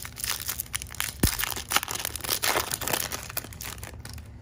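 The wrapper of a Panini NBA Hoops trading-card pack being torn open and crinkled in the hands: a dense run of crackles, with one sharp knock about a second in, settling down near the end.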